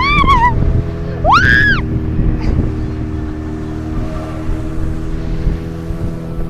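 Speedboat motor running steadily at speed, with water rushing along the hull. Two short high-pitched cries rise and fall over it in the first two seconds.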